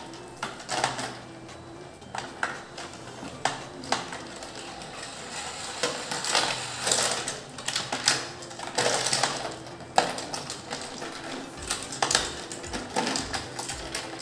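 Battery-powered toy fishing game running: its small motor whirs steadily as the pond turns the fish, with many sharp little plastic clicks and clacks of fish and rod throughout.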